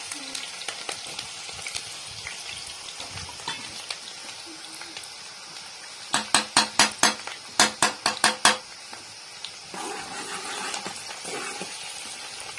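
Chopped onion, garlic and whole coriander seeds sizzling in hot oil in a steel pan. About halfway through, two quick runs of metallic clinks: a metal ladle knocking against the pan.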